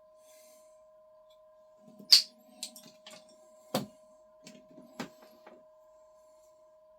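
Several sharp clicks and knocks from PTFE tubing and its push-fit couplings being handled on a Bambu Lab AMS, with the loudest knock about two seconds in. A faint, steady two-tone hum runs underneath.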